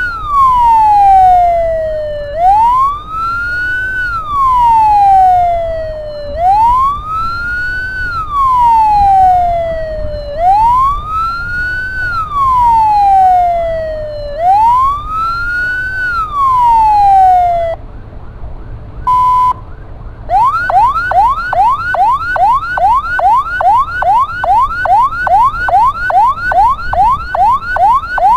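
Ambulance's electronic siren sounding a slow wail that rises and falls about once every four seconds. After a short steady tone near the middle, it switches to a fast yelp of about three to four sweeps a second.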